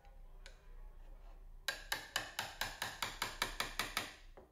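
Claw hammer tapping the end of a wood chisel: one light tap, then about a dozen quick strikes at roughly five a second, beginning about a second and a half in. The chisel is squaring the rounded corner that the router bit left in a rabbet cut into a 2x4.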